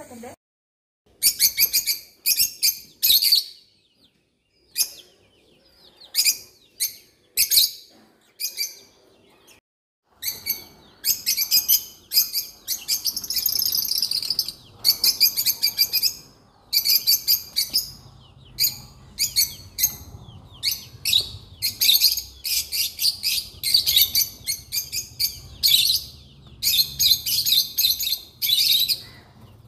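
Small birds chirping loudly in rapid bursts of high chirps, with a few brief dead-silent breaks in the first third.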